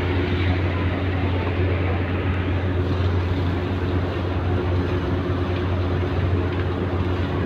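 A ferry's engines running with a steady low drone under a constant wash of noise.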